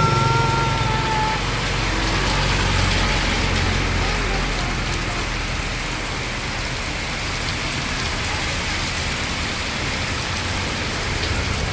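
Steady rain falling, an even hiss with a low rumble underneath. A brief high tone fades out within the first second or so.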